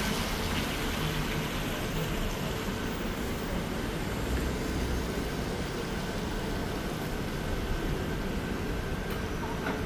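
Steady city street traffic noise, cars running on wet roads. The low rumble swells about four seconds in as a car moves close by.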